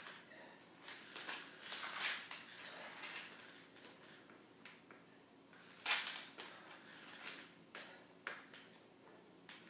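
Irregular light clicks, knocks and rattles from metal HKAFO leg braces and aluminium forearm crutches as the wearer shifts her weight while standing, the sharpest knock about six seconds in.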